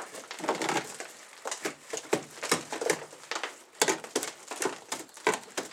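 Rusted-through steel cab floor of an old truck crunching, scraping and cracking as pieces are worked loose by hand, with loose mud and rust flakes pattering down. The rust has eaten the floor pan through.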